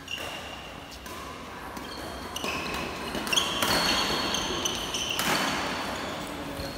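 Badminton play: sports shoes squeaking in short high chirps on the court floor, with several sharp racket-and-shuttlecock hits and footfalls, busiest in the second half.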